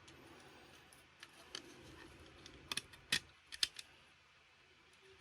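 Small sharp plastic-and-metal clicks and taps as screws and printed spacer parts are handled on an RC truck chassis: a couple of faint ticks early, then a quick cluster of five or six louder clicks in the middle.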